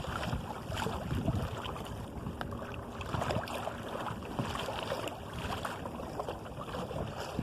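Water splashing and lapping irregularly against the hull of a sailing canoe under way, with wind buffeting the microphone.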